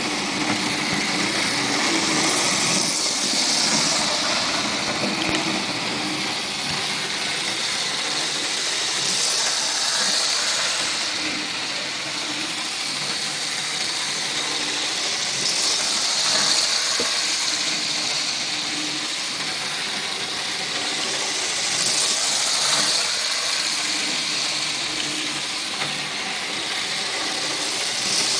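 Small N scale model train running on its track: the electric motor whirs and the wheels rattle on the rails. The sound swells and fades about every six seconds as the train comes round the oval loop.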